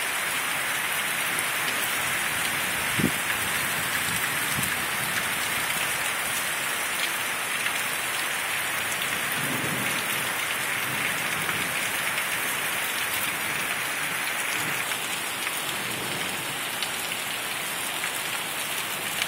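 Heavy rain pouring steadily during a thunderstorm, with a few low rumbles of thunder under it; the sharpest comes about three seconds in.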